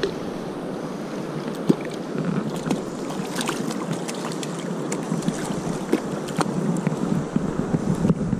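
Steady rush of river current, with small splashes and clicks as a hooked Dolly Varden is handled at the water's surface.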